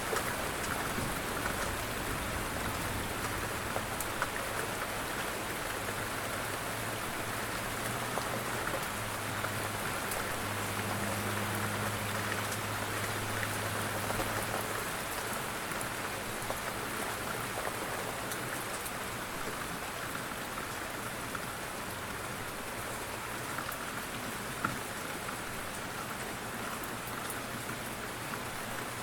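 Light rain falling steadily, an even patter with scattered individual drops ticking.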